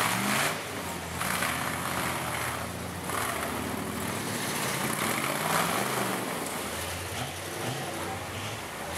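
Jeep Wrangler rock crawler's engine revving in repeated bursts, its pitch climbing and dropping as the driver works the throttle to crawl over muddy rock. Short bursts of rushing noise come in between.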